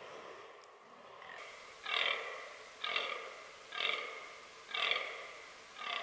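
Fallow buck groaning, the rutting call of the buck: five short groans about a second apart, starting about two seconds in.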